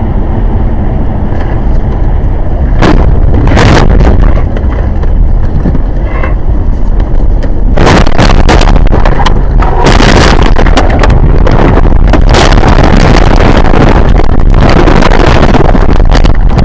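Loud, steady rumbling of a moving vehicle on a dash-camera microphone, broken by many sharp knocks and bangs, a few about three to four seconds in and then a dense run from about eight seconds on.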